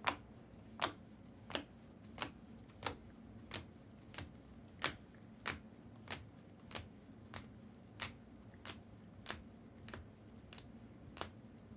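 Single sharp clicks on a computer at an even pace, about three every two seconds.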